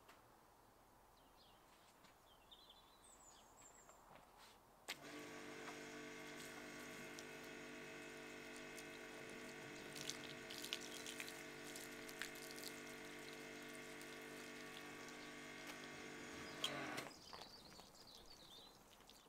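BigBoi WashR pressure washer running, a steady motor-and-pump hum with the hiss of water spraying onto a car roof. It starts about five seconds in and cuts off about twelve seconds later.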